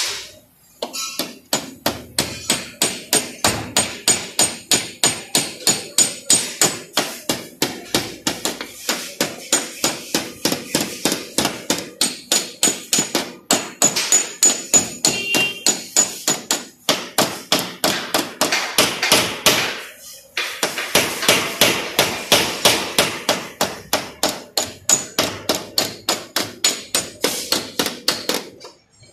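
Small hammer tapping rapidly and lightly on a car's painted front body panel, about four taps a second, working out a dent without repainting. The taps stop briefly about a second in and twice more later.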